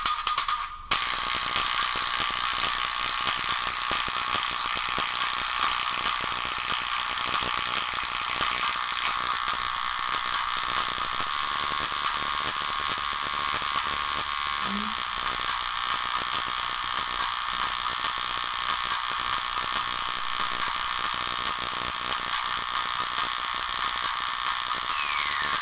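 Small tablet loudspeaker driven hard at high volume, giving a steady harsh buzzing rasp as it is pushed to fail. There is a short break about a second in, and a tone glides down near the end.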